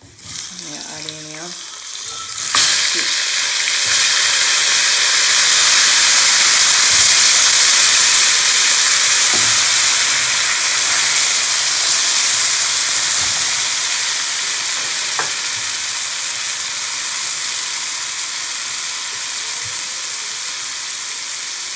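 Seasoned fish fillets sizzling as they pan-fry in hot oil. The sizzle jumps up sharply about two and a half seconds in, then slowly eases off toward the end.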